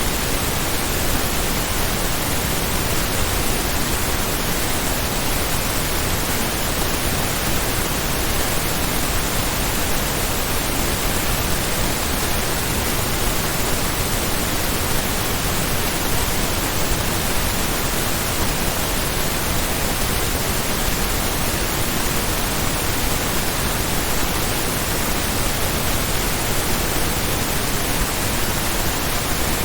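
True-stereo pink noise test signal: steady, even hiss across the whole frequency range, loudness-normalised to −14 LUFS with a 1 dB peak.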